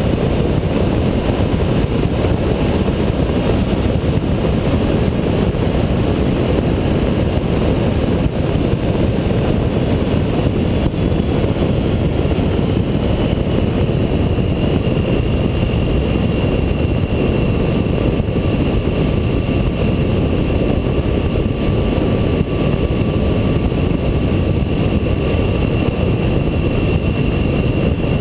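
Honda ST1300 V4 sport-touring motorcycle cruising at steady highway speed: a constant low rush of wind on the microphone mixed with engine and road noise. A faint high whine joins about a dozen seconds in.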